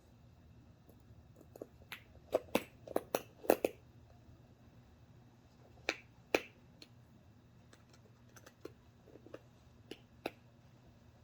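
Scattered sharp clicks and light knocks of hands working a small RC crawler wheel and tire, seating and turning the tire on its wheel. There is a quick run of clicks in the first few seconds, two more about six seconds in, and a few fainter ones near the end.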